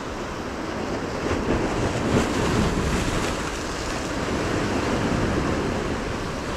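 Ocean surf surging and breaking against the shoreline rocks, a steady rushing wash that swells a little over a second in and eases again toward the end.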